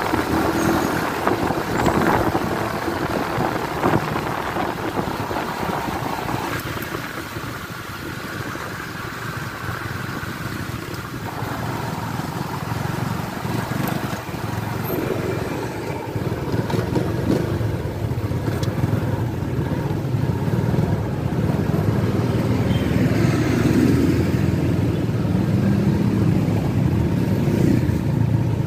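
Motorcycle engine running while being ridden, a continuous engine drone that eases off for a few seconds early on and then grows louder again through the second half.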